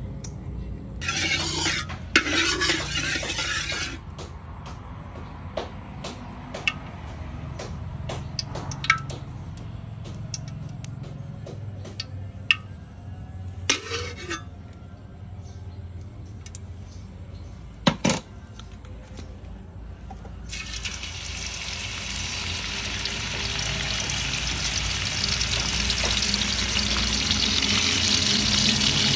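A metal spatula scrapes and clinks against a steel wok of hot oil, with scattered sharp clicks. About two-thirds of the way in, beef slices go into the hot oil and begin to sizzle, the frying growing steadily louder.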